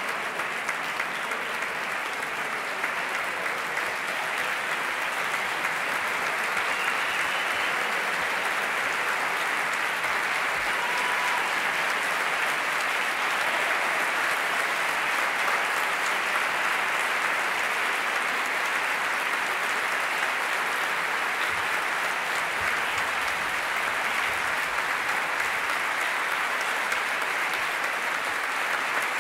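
A concert-hall audience applauding, a steady dense clapping that grows a little louder several seconds in and keeps on without a break.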